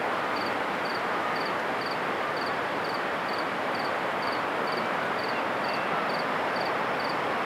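Steady noise of an approaching train led by an Alco RS18 diesel locomotive, with an insect chirping in short high triple pulses about twice a second.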